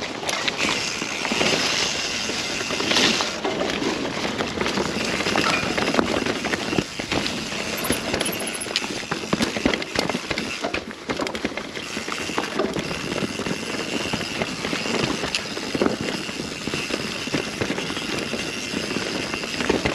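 Mountain bike ridden fast down a rough dirt trail: a steady rush of tyre and air noise with constant rattling and sharp clicking knocks from the bike over the bumps.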